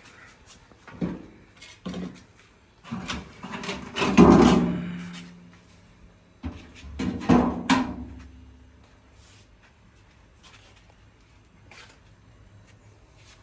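A series of wooden knocks and scrapes, with two louder clattering knocks about four and seven seconds in that ring briefly, like a door or drawer being handled.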